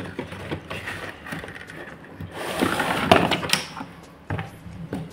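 Cardboard-and-plastic toy packaging being handled as the figure is taken out of its box: a stretch of scraping and rustling about halfway through, with a few sharp clicks and knocks.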